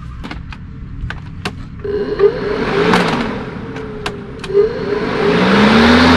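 A few clicks from the controls of a DeWalt 20V MAX battery lawn mower. Then its electric motor and blade start up with a wavering whine and a growing whoosh. Near the end the pitch rises and settles into a steady hum as the mower comes up to speed.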